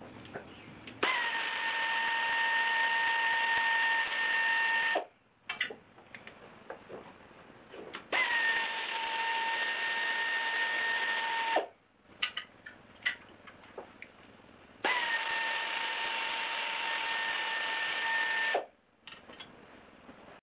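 Pneumatic air ratchet running in three bursts of about four seconds each, a steady whine with a hiss of exhaust air, the pitch dipping slightly as each burst starts and then holding. It is spinning out the bolts of the Yamaha YFZ450's left engine side cover. Light clicks of tool and bolts fall between the bursts.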